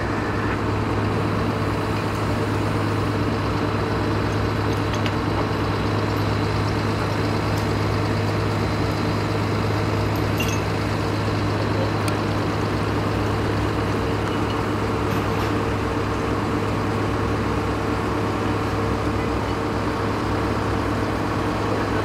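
Heavy vehicle's diesel engine running steadily at an even speed, a deep constant drone, with a few faint clicks over it.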